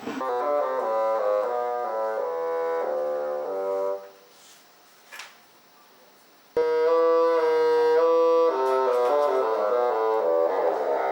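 A bassoon ensemble playing sustained chords of several held notes. It stops about four seconds in and starts again suddenly about two and a half seconds later.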